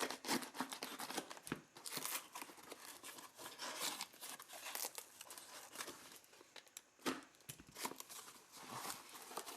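Packing material being torn and crumpled as a parcel is unwrapped, with irregular crackles and rustles throughout.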